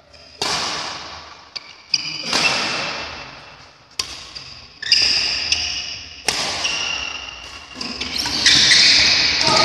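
Badminton rally in a large echoing hall: sharp racket strikes on the shuttlecock about once a second, each ringing out in the room's reverberation, with short high squeaks between them. It gets louder and busier near the end.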